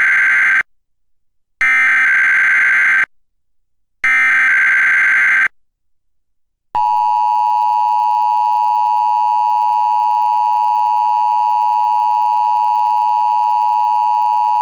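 Emergency Alert System SAME header: three bursts of buzzy digital data tones, the first already under way, each about a second and a half long with a second's gap between them. After a pause, the EAS two-tone attention signal (853 and 960 Hz) sounds steadily for about eight seconds and cuts off abruptly at the end, marking the start of a required weekly test.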